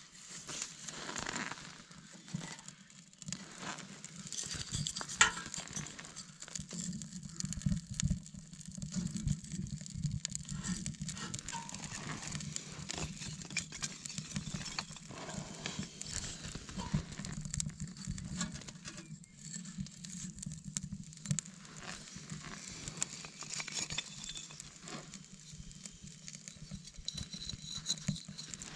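Kindling fire crackling in a small steel wood-burning stove, with many irregular small sharp cracks as the flames take hold. Near the end a stick of wood is handled at the stove door.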